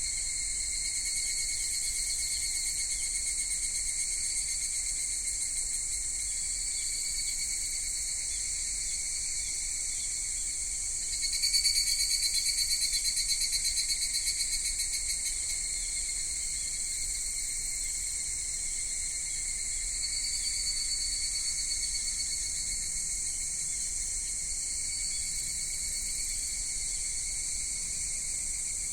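A steady chorus of cicadas singing in high, shrill bands. About eleven seconds in, a nearer cicada's rapidly pulsed call comes in loud and fades away over a few seconds, and a fainter swell follows near the twenty-second mark.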